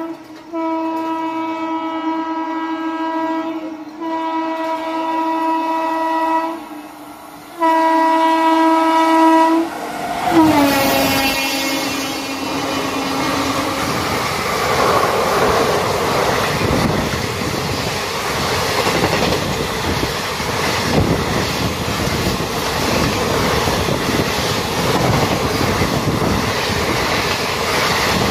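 Indian Railways locomotive horn sounding three long blasts, then a fourth that drops in pitch as the train goes by. The passenger train's coaches then pass with a loud rumble and rhythmic wheel clatter on the rail joints.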